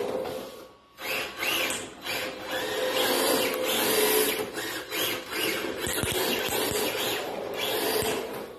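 Small electric RC drift car (MST RMX 2.0 chassis) driving hard: its motor and gears whine in repeated surges as the throttle is blipped, and its tyres scrub as it slides on a tile floor. The sound drops out briefly just before a second in, then rises and falls again and again.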